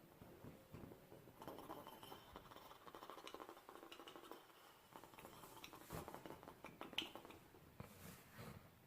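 Near silence: faint room tone with small scattered clicks and rustles.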